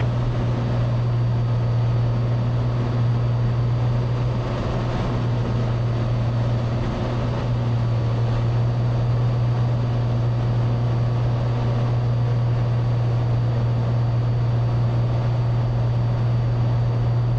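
Cessna 182's piston engine and propeller droning steadily in flight, one even low hum with no change in pitch or level.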